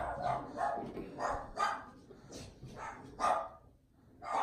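A dog barking in a run of short, quick barks, about two or three a second, with a brief lull near the end.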